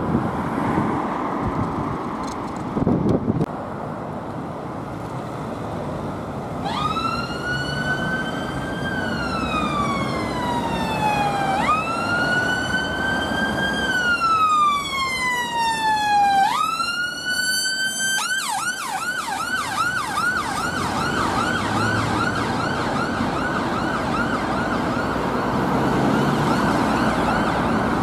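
Two-tone-free electronic siren of a North West Ambulance Service Fiat Ducato ambulance on an emergency run, over passing traffic: about seven seconds in it starts a slow wail that rises and then slides down, twice, then switches to a fast yelp of about three cycles a second.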